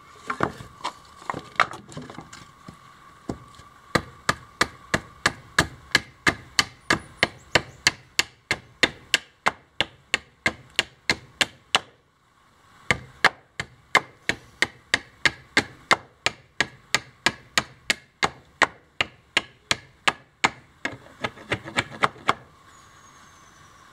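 A short steel carving blade, made from a broken sword, chopping down into the end of a wooden axe handle: quick, regular wood strikes about three a second, with a short pause about halfway and a stop near the end.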